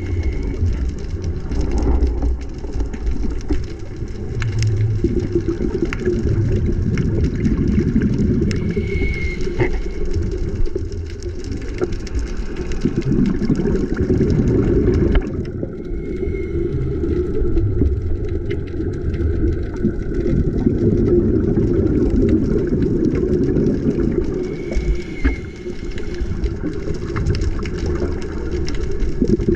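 Muffled underwater rumble picked up by a GoPro in its waterproof housing, steady and low throughout. Faint brief whistles come every several seconds.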